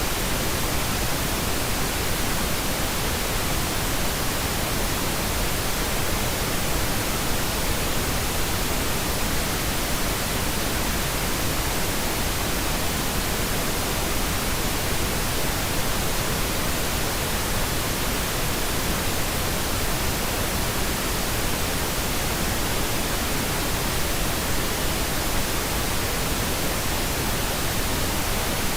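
Steady white noise: an even, unchanging hiss that never varies in level.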